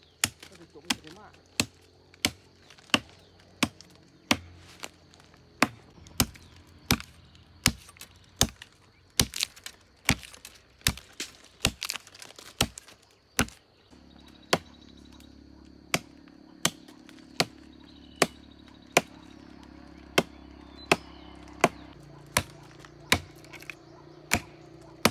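Machete blade chopping into a green tree trunk to fell it, one sharp chop about every 0.7 seconds in a steady rhythm.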